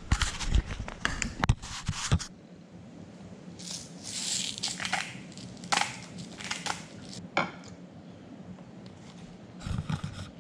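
Crunching and crinkling handling sounds as pan-fried fish is salted and put into a wrap: a dense run of sharp crackles in the first two seconds, then softer rustling with scattered clicks.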